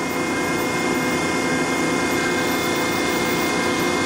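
1972 Marvel 15A/S automatic horizontal band saw running steadily, its blade cutting through a bar about 2.5 inches across, with an even mechanical hum and several steady tones.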